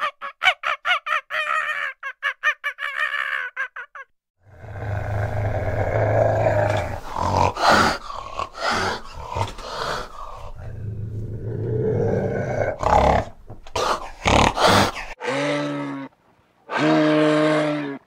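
A fast run of short, pitched animal calls. Then a fishing cat's long, rough growling and hissing with sharp snaps, and finally a bull moose's low, drawn-out grunting calls, two of them with a gap between.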